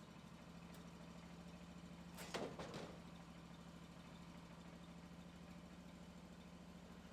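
Faint engine idling steadily, with a short clatter of knocks about two seconds in.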